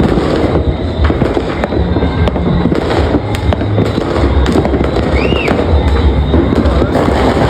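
Massed New Year's fireworks and firecrackers going off without a break: dense crackling and popping over a continuous low rumble, with a brief whistle about five seconds in.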